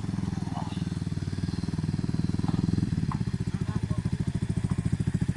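Motorcycle engine running with a rapid, pulsing beat that becomes more distinct in the second half: the bike is the one that keeps breaking down.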